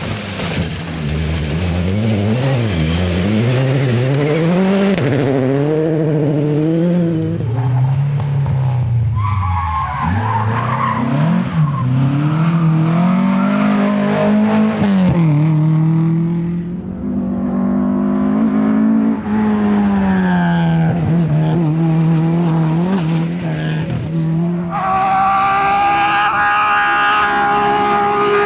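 Rally cars running hard on a stage, one after another. Each engine's pitch climbs and drops through gear changes and braking. Near the end, one car holds a high, steady engine note.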